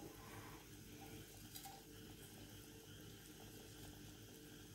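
Near silence: a pan of sardine curry simmering quietly on the stove over a faint steady hum, with one faint click about a second and a half in.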